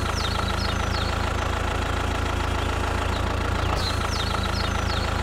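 An engine idling steadily with an even, low knocking beat, starting and stopping abruptly.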